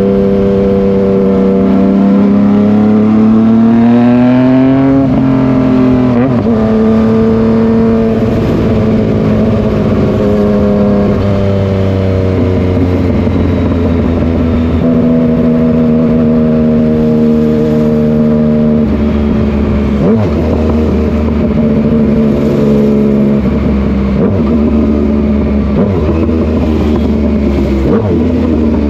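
Yamaha MT-09's inline three-cylinder engine running loud: its note climbs in revs over the first five seconds, then holds steady pitches that shift up and down in steps every few seconds.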